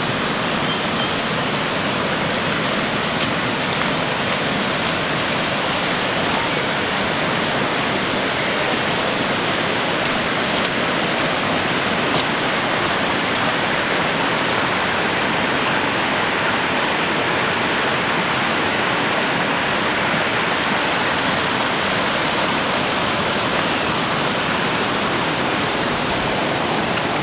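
Floodwater of a flash-flooding creek rushing in a steady, loud roar of water overflowing its banks.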